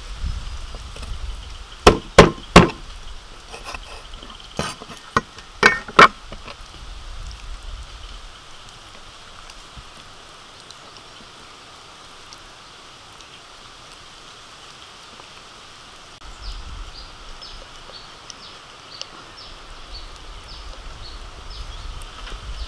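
Meat cleaver chopping through a raw chicken's joints onto a wooden chopping board: about seven sharp, loud chops in two quick bursts in the first six seconds, followed by quiet handling of the carcass.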